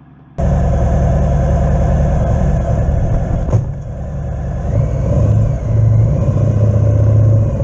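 Motorcycle engine running loudly, heard through a helmet-mounted camera microphone. It starts abruptly about half a second in, with a brief knock a little past the middle, and runs on with a steady low hum.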